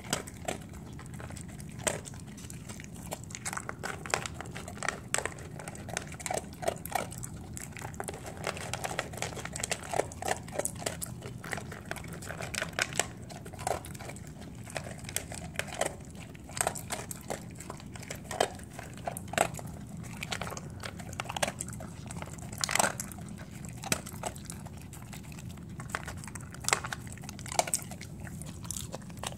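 A dog crunching and chewing dry kibble from a stainless steel bowl, with many irregular crunches.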